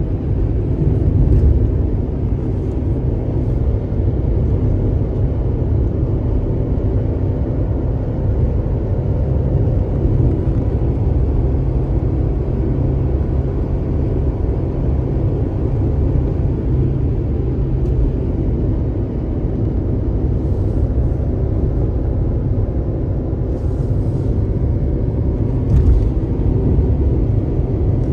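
Car driving noise heard from inside the footwell: a steady low rumble of engine and road, with a faint hum above it. A few faint ticks come through in the later part.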